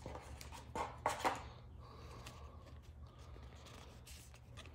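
Trading cards being handled and slid against one another, with two short rustles about a second in, then faint handling over a steady low hum.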